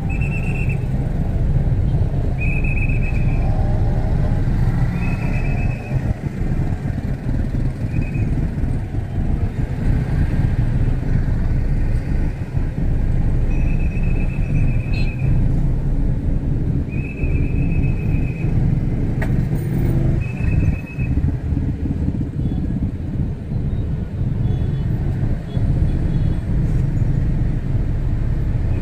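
Heavy street traffic of motorcycles and cars in a jam: a steady low engine rumble, with several short high-pitched beeps sounding through it, two of them held for a second or two.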